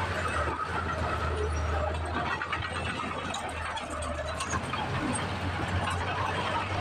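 Tipper truck's diesel engine running with a steady low hum as the truck creeps forward with its bed raised, soil sliding out of the back, with squeaks and light clinks of metal from the truck.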